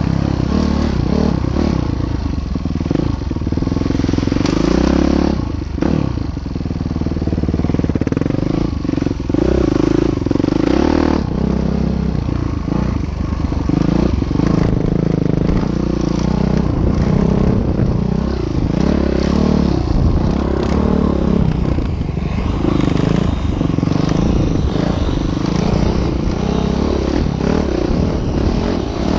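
A train passing on a railway bridge, a steady heavy rumble with clattering and scraping from the wheels on the rails.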